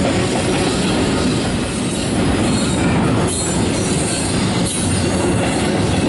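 Double-stack intermodal container well cars of a freight train rolling past: a loud, steady rumble of steel wheels on the rails.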